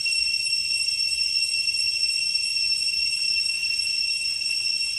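Insect chorus: a steady, high-pitched drone, one shrill tone with overtones, held without a break.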